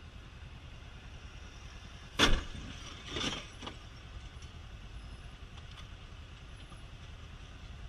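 Motorcycle engine idling low in stopped traffic, with a sharp knock about two seconds in and two smaller knocks about a second later.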